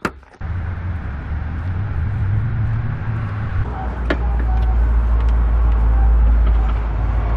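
A car on the move: a steady low road-and-engine rumble that swells a little in the second half, after a sharp click at the very start.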